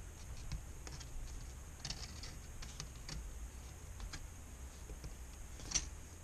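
Scattered small clicks and taps of hands working the LCD screen's cover back into place, with a sharper click near the end.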